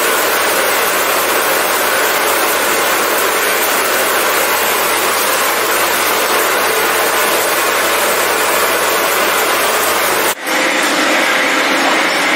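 Steady, loud running noise of a metalworking power tool in the workshop, working the metal for a truck brake cylinder. It drops out briefly about ten seconds in and carries on slightly changed.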